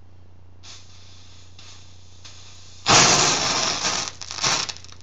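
Magnesium powder and silver nitrate, set off by a few drops of water, flaring up about three seconds in with a sudden loud hissing rush and crackle of sparks for over a second, then a second shorter flare near the end. A vigorous exothermic single replacement reaction.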